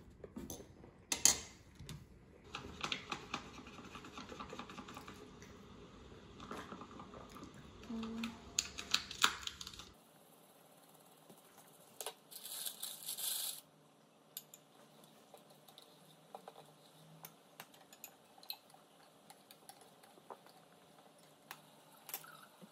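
Metal fork clinking and scraping on a porcelain plate while a brownie is broken apart, a scatter of small clicks and taps, with a brief rustle partway through.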